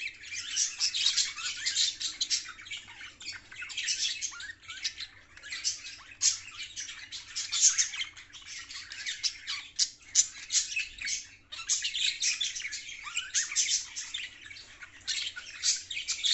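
Budgerigars chattering and warbling almost without a break, with quick chirps and harsh squawks and a brief pause about eleven seconds in.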